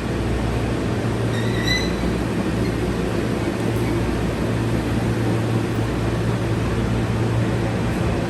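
Passenger train cabin noise: a steady low rumble and hum of the train running. A brief high tone sounds about one and a half seconds in.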